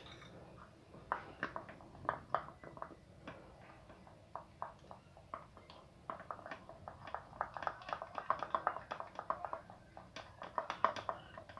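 Metal spoon stirring and scraping a thick starch-and-lemon-juice paste in a small plastic bowl: quick, irregular taps and scrapes, sparse at first and busier in the second half.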